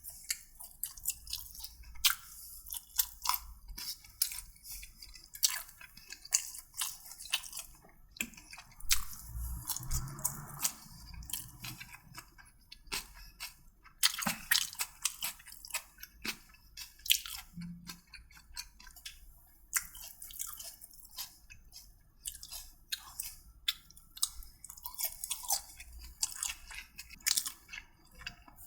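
A person chewing and crunching food close to the microphone, with many short, irregular clicks.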